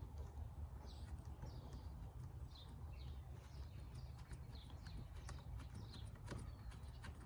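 Faint bird chirping: short, high, falling chirps repeating about twice a second, with scattered light clicks and a low steady hum underneath.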